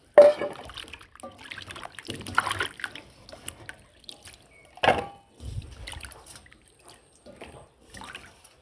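Water splashing and sloshing as a hand swishes cut potato wedges around in a steel bowl of water, rinsing them. Two sharp knocks stand out, one right at the start and one about five seconds in.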